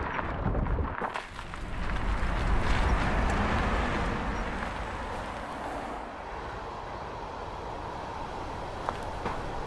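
Car and road noise from a music video's opening scene, with no music yet: a rushing sound that swells about two seconds in and eases off after about six seconds.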